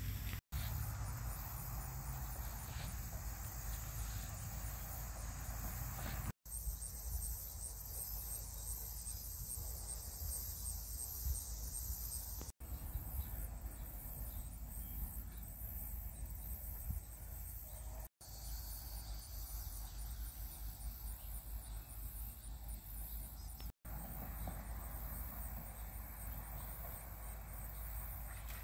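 Insects chirping steadily in a high, rapidly pulsing drone, over a low wind rumble on the microphone. The sound cuts out for an instant about every six seconds.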